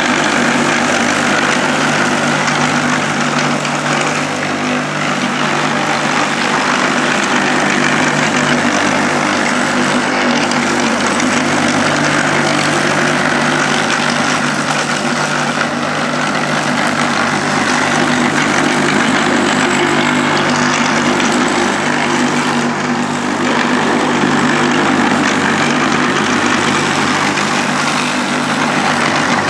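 Electric lawnmower motor and spinning blade under a 3D-printed plastic deck, running steadily with a constant hum as the mower is pushed across grass.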